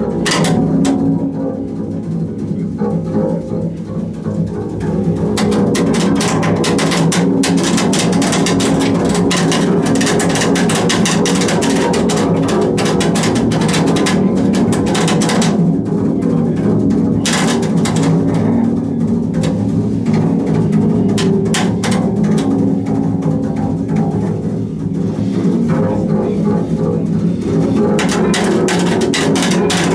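Double bass bowed with two bows at once in free improvisation: sustained low bowed tones under dense, scratchy, rattling strokes on the strings. The texture thins and drops a little about two to five seconds in, then thickens again.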